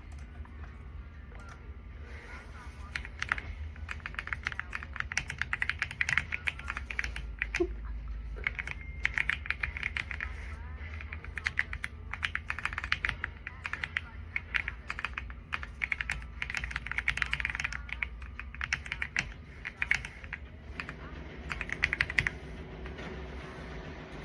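Typing on an AULA F99 mechanical keyboard with pre-lubed linear switches: quick runs of clacking keystrokes, broken by short pauses.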